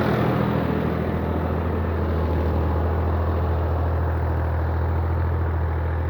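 An engine running steadily with an even low hum, under a broad rushing noise.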